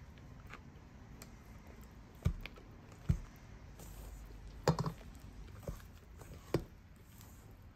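A few short, soft knocks and taps, about five spread over several seconds, from the hand mixer's metal beaters and the stainless steel mixing bowl being handled; the mixer's motor is not running.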